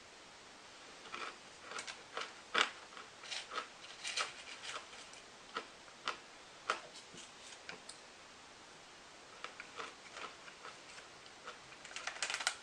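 Crunchy granola topper with chocolate-covered honeycomb pieces being chewed in irregular crisp crunches, in two spells with a quieter gap in the middle.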